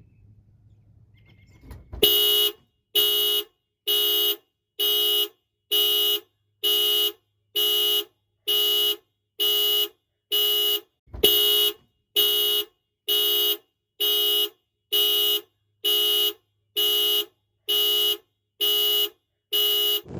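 Car horn honking in a steady rhythm, about once a second, nineteen times, the pattern of a car alarm sounding through the horn. The honks begin about two seconds in, after a faint low hum.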